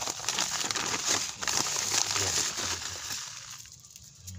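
Furadan insecticide granules sprinkled over loose soil, making a dense rustling, crackling patter that fades out about three and a half seconds in.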